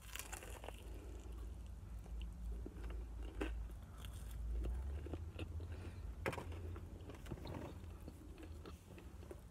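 Close-up eating: biting into and chewing fried chicken fingers and crinkle-cut fries, with scattered crunches, the sharpest at the start, about three and a half seconds in, and a little past six seconds. A low steady hum runs underneath.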